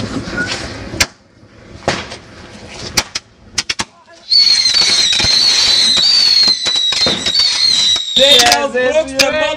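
Whistling ground-spinner firework: a few sharp pops and crackles, then about four seconds of loud, high shrieking whistle that wavers and slowly falls in pitch as it sprays sparks. Voices come in near the end.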